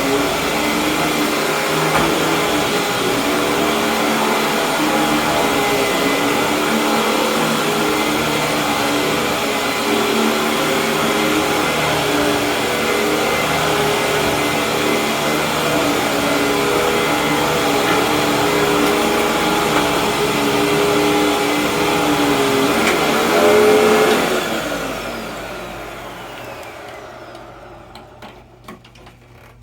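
Hoover WindTunnel Supreme upright vacuum cleaner running steadily with its brushroll spinning, briefly louder just before it is switched off about 24 seconds in. The motor then winds down in falling pitch over several seconds, and a few light clicks follow near the end.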